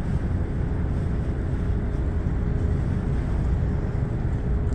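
Cruise boat's engine running steadily underway: a low, even rumble with a faint steady hum above it.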